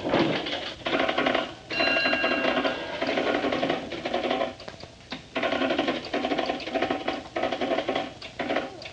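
An electric bell ringing with a fast rattle, in repeated bursts about a second long with short breaks between them.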